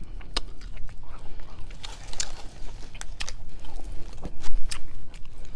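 Close-up eating sounds: chewing, with many short sharp clicks and scrapes of a fork against a plastic food container.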